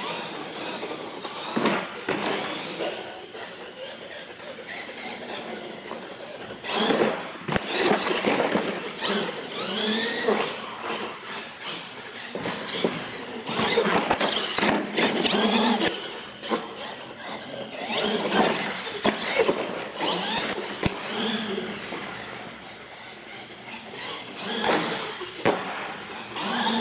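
RC monster truck driving hard on a smooth indoor floor: its motor whines up and down in pitch with the throttle in several surges, with squeals as it accelerates and turns.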